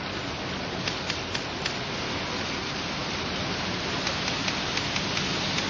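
Steady rain falling on a wet street, an even hiss with scattered faint drip ticks.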